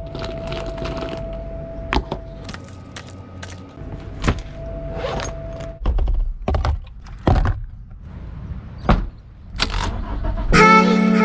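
Keys jangling and a series of clicks and thunks from a car's interior as a Toyota key is worked into the ignition. A steady electronic tone sounds on and off through the first half. Loud guitar music starts near the end.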